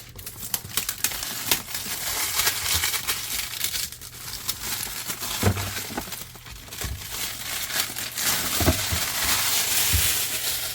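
Plastic shrink wrap being torn and peeled off a tool case, crinkling and crackling throughout, with a few low knocks.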